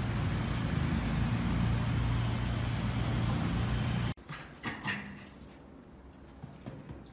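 Steady traffic noise with a low hum. It cuts off abruptly about four seconds in, and a much quieter stretch follows, with a few brief high whimpers from a small excited dog about a second after the cut.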